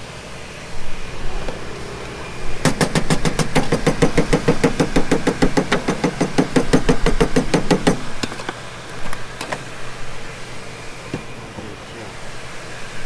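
Metal seasoning shaker shaken rapidly over the sandwiches, a quick even clatter of about six or seven knocks a second that starts about three seconds in and stops after about five seconds.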